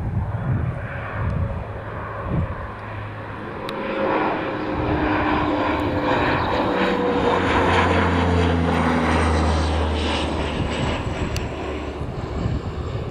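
Low-flying fixed-wing aircraft passing over, its engine drone swelling to its loudest about eight seconds in and dropping in pitch as it goes by.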